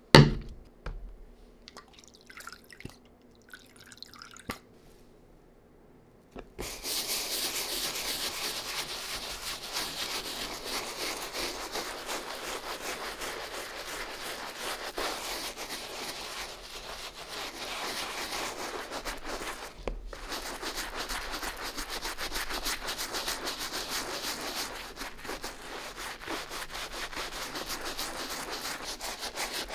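A sharp knock at the very start, then from about six seconds in a stiff-bristled brush scrubbing a sneaker in quick continuous strokes, with a brief pause near the middle.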